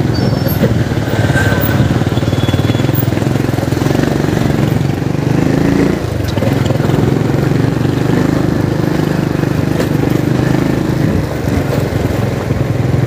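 A small vehicle engine running steadily on the move, its note dipping briefly about six seconds in.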